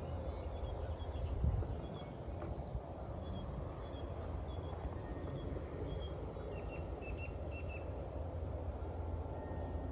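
Steady low rush of wind ahead of a thunderstorm, swelling briefly about a second and a half in, with scattered short high chirps over it and a quick run of chirps a little past the middle.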